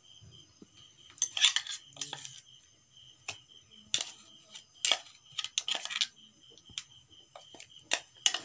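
A metal spoon scraping and clinking against a stainless steel pot as thick wet masala paste is scooped out, in irregular short scrapes and taps.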